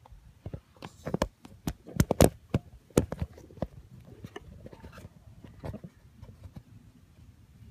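An irregular run of sharp clicks and knocks, loudest about two seconds in and again near three seconds, then fewer and fainter.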